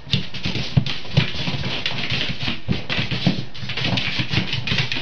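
A cat chasing a light dot across a hard floor: rapid, irregular scuffles and thumps of its paws as it darts and pounces.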